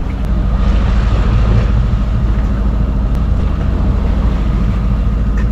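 Steady low rumble and rush of a sailing yacht under way, with wind buffeting the microphone.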